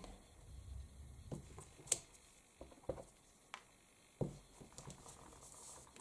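Faint handling sounds of a clear acrylic stamp block pressed onto cardstock and lifted off, with a handful of light taps spread through.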